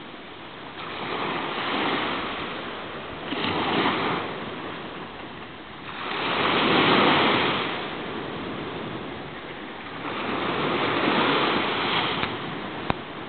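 Small waves breaking and washing up a sandy beach, swelling and fading in about four slow surges, with one short click near the end.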